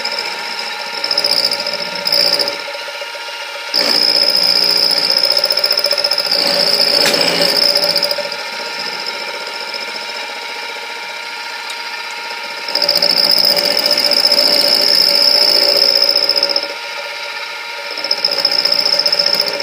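Milling machine running with an end mill taking back-and-forth passes across the workpiece to flatten a face. Louder stretches with a high whine while the end mill is cutting come four or five times, with the machine running more quietly between passes.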